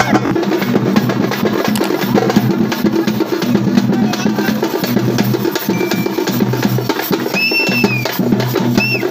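Fast, dense traditional Tamil funeral-procession drumming, the kind of parai beat played for a last procession. About seven seconds in, a high call that rises and falls joins the drums.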